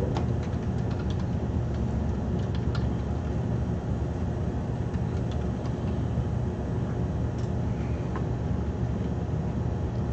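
Steady low background hum with a few faint, scattered clicks.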